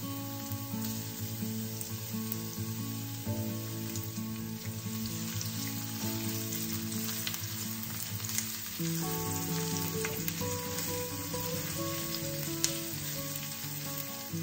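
Sliced garlic sizzling and frying in hot oil in a stainless steel pan, with a spatula clicking and scraping against the pan now and then. Background music plays underneath.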